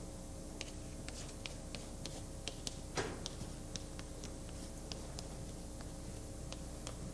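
Quiet room tone with a steady low hum and faint, irregular small ticks and clicks, and one short soft noise about three seconds in.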